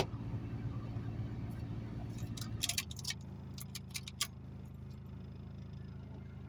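Chrysler PT Cruiser engine idling steadily, still running although the ignition has been switched off, with a handful of sharp key clicks and jingles about three to four seconds in. The idle note shifts slightly around the time of the clicks.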